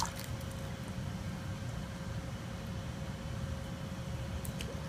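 Steady low rumble with a faint steady hum, and a couple of small water splashes near the end.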